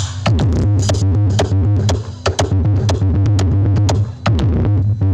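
Loud electronic dance music played through a large sound system: a heavy, steady bass line with sharp drum-machine hits and synth, and falling bass sweeps shortly after the start and again near the end.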